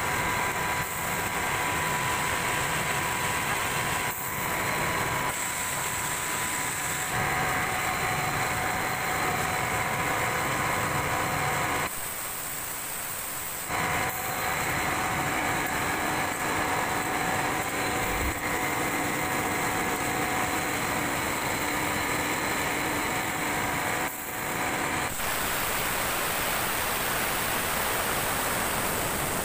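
A machine running steadily: an engine-like drone with a few steady tones, whose character changes abruptly several times.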